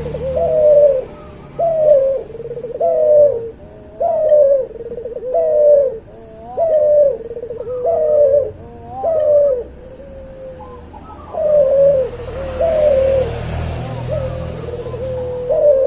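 Cuhu dove, a hybrid of a white albino puter and a puter pelung (domestic ringneck doves), cooing in a steady series of short coos, about one a second, each rising and then falling in pitch, with a brief pause about ten seconds in.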